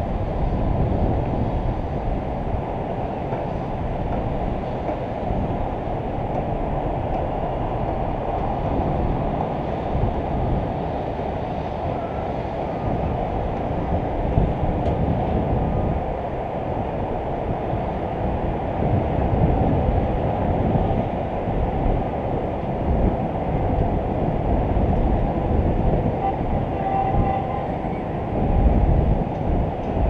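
Wind buffeting a camera's microphone hung high on a crane's hook block: a steady rumble with irregular gusty swells, and a faint steady tone above it.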